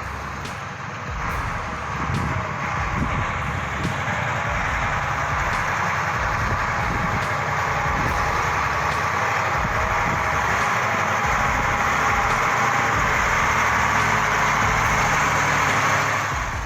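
Heavy truck engine running steadily under way, growing a little louder in the first couple of seconds.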